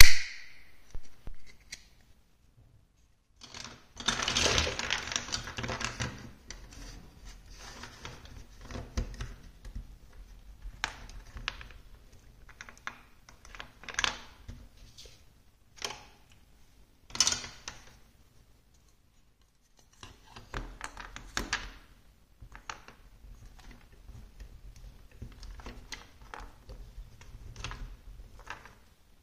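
Large plastic building blocks clattering and clicking as hands rummage through a pile of them and set pieces down. There is a sharp click at the start, a longer stretch of rattling about four seconds in, and scattered clicks after that.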